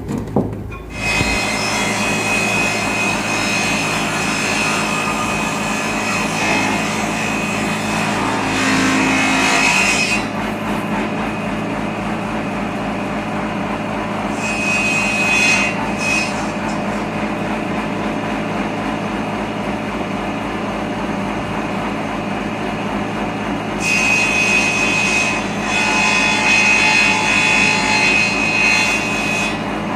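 An electric power tool running steadily while working teak, growing harsher in several stretches as it bites into the wood.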